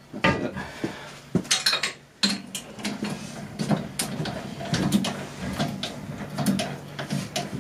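Irregular metallic knocks, clinks and scrapes of a long steel shaft being pushed and slid through a metal lathe's headstock and steady rest, with a steady low hum underneath from about two seconds in.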